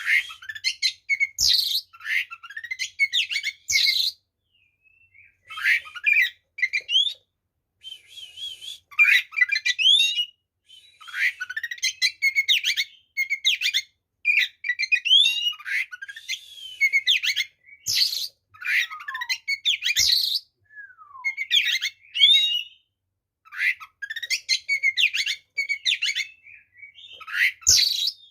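Oriental magpie-robin (kacer) singing hard in its fighting song: loud, varied bursts of whistles, rising and falling slurs and harsh chattering notes, each phrase a second or two long with short pauses between.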